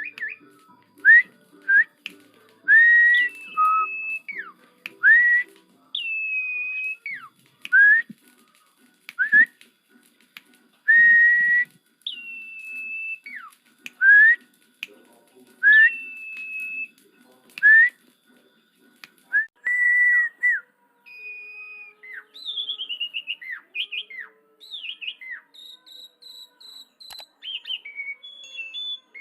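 Asian pied starling (jalak suren) singing: loud, clear whistled notes, some sweeping upward and some falling, repeated every second or two, then a quicker run of varied whistles and chirps near the end.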